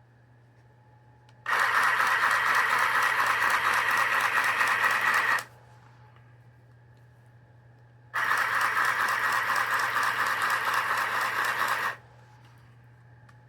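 Handheld portable sewing machine stitching a hem, run in two bursts of about four seconds each with a rapid, even buzz, starting and stopping abruptly.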